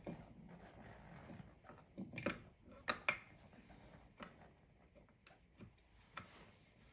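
Scattered light clicks and knocks as a Yamaha RD250 cylinder barrel is handled and worked down over its piston and rings. The loudest come as two quick pairs two to three seconds in, with fainter taps after.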